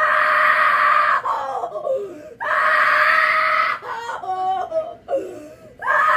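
A high-pitched voice screaming in three long, held shrieks, with shorter wavering cries in between.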